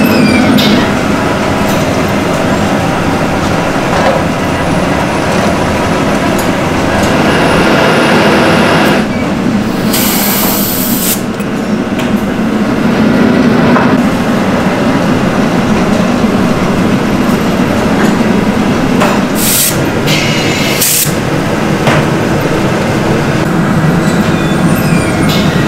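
Steady loud din of ceramics-factory machinery running, with short hisses about ten seconds in and twice around twenty seconds.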